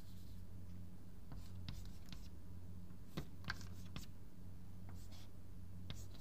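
Chalk writing numbers on a blackboard: scattered short scratches and taps, over a steady low hum.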